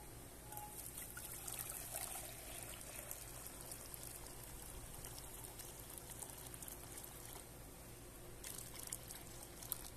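Water poured from a plastic jug into a metal saucepan, splashing and trickling into the pan.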